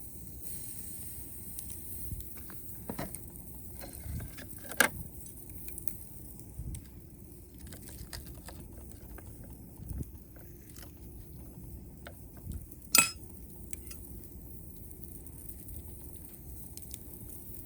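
Wood campfire crackling with sparse small snaps and two loud sharp pops, about 5 and 13 seconds in.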